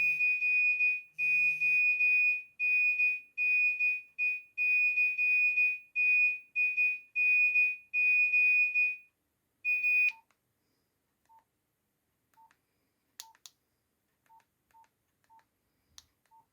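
Nokia 1280 monophonic ringtone playing from the phone's small speaker: a rhythmic pattern of short, high-pitched beeps that stops about ten seconds in. A few faint clicks follow.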